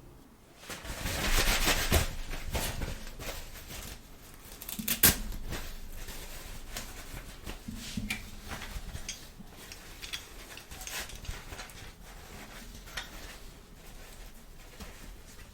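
Plastic toy pieces and packaging being handled: a rustling swell about a second in, a sharp click about five seconds in, then scattered light taps and clicks.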